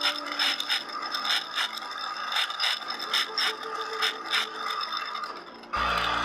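Woodworking hand-tool work: a run of irregular clicks and scraping, several a second. Near the end a steady motor of a power tool starts up abruptly and keeps running.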